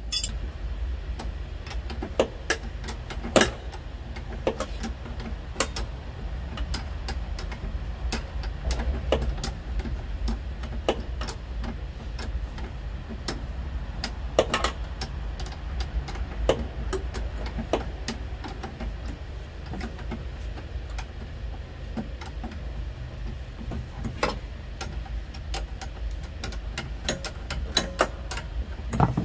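Irregular metallic clicks and knocks of hand tools working on a tractor's brake rod adjustment, over a steady low rumble.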